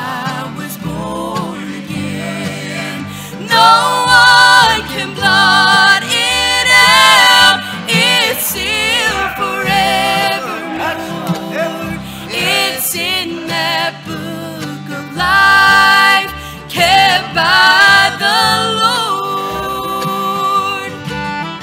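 Bluegrass gospel band playing: women's voices sing held, wavering notes over acoustic guitars, mandolin, upright bass and fiddle.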